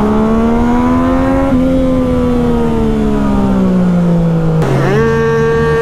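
Yamaha MT-09's three-cylinder engine pulling under way: its note rises slowly, then eases off and falls gradually, dropping to a lower note near the end.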